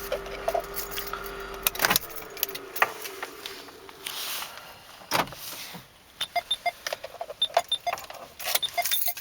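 The 2000 Mazda MPV's 2.5-litre V6 engine idles with a steady hum and is switched off with a click about two seconds in, the hum fading away. Keys jangle and clicks and knocks follow, then a quick run of short chime tones near the end.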